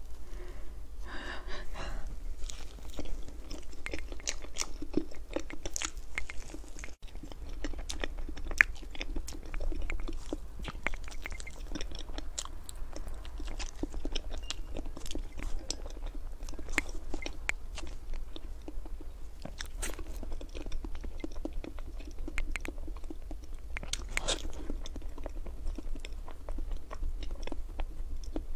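Close-miked chewing of a cream-filled matcha crepe towel roll: many small mouth clicks and smacks throughout.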